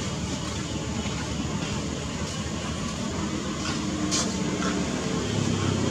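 Steady outdoor background noise with a low rumble, a brief click about four seconds in, and a low hum that grows louder near the end.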